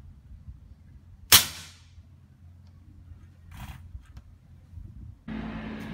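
A single shot from a Sumatra .25-calibre PCP air rifle fitted with a muzzle moderator: one sharp crack about a second in that dies away quickly. A softer brief noise follows a couple of seconds later, and a steady hiss sets in near the end.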